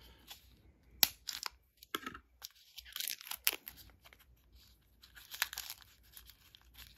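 Plastic wrapping on a small boxed poker dealer button crinkling and tearing as it is worked open by hand. It comes in short, irregular crackles, the sharpest about a second in.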